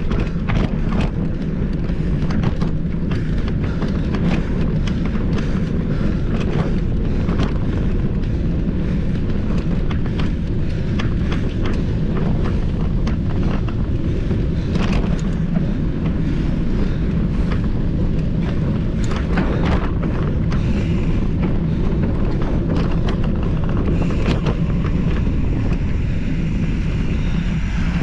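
Mountain bike ridden over rough trail: a steady low rumble of wind buffeting the microphone and tyre noise, with frequent sharp clatters and rattles from the bike.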